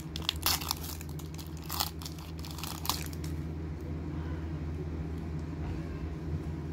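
A trading-card pack wrapper being torn open and crinkled by hand, a run of sharp crackles over the first three seconds. After that only a steady low hum remains.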